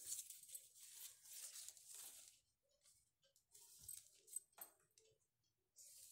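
Faint scratching and rustling of a pen drawn along a measuring tape across newspaper. There is a longer stroke of about two seconds at the start, then a few light ticks and another short scratch near the end.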